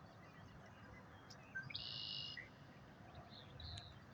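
Faint bird calls: one call lasting under a second about halfway through, then a shorter call near the end, over a quiet outdoor background.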